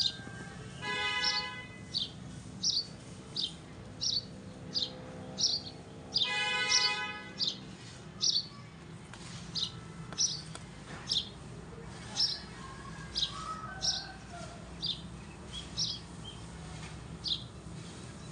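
A parrot chirping: a short, sharp, high chirp repeated roughly once a second, with two longer, fuller calls, one about a second in and one about six seconds in.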